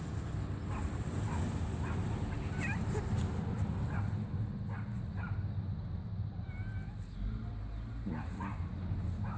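A cat mewing in repeated short, high calls, about ten of them, over a steady low rumble.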